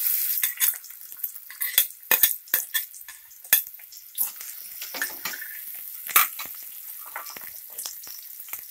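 Chopped onions sizzling in hot oil in an aluminium pressure cooker, loudest at the start as they hit the oil and then settling to a low sizzle. A steel ladle scrapes and clinks against the pot many times as the onions are stirred.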